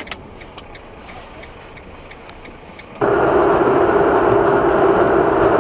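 Faint ticking, a few ticks a second, over a low hum. About three seconds in it gives way suddenly to loud, steady road and engine noise of a car driving, picked up by a dashcam microphone inside the cabin.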